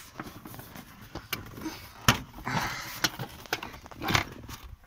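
Plastic rear side trim panel of a Peugeot 206cc being prised off, its retaining clips letting go with several sharp clicks and knocks, and a short stretch of plastic scraping in the middle.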